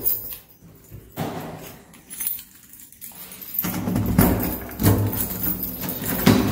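Keys jangling and rattling while a steel door knob on a bedroom door is handled, in uneven bursts that are loudest in the second half.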